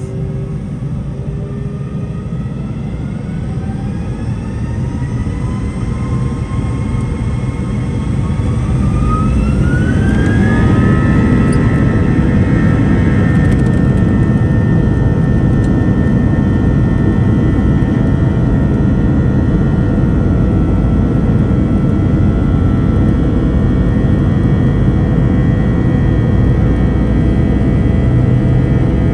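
Airbus A321's IAE V2500 turbofan engines spooling up to takeoff thrust, heard from inside the cabin. Several whines rise in pitch and the noise grows louder over the first ten seconds or so. The engines then run steadily at full power with a loud rumble and high steady whines as the jet accelerates down the runway.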